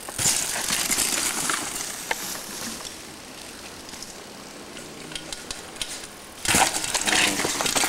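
Two mountain bikes landing one after the other off a rock drop and rolling out over the dirt: a rush of tyre and bike noise lasting about two seconds begins just after the start, and a second one comes near the end.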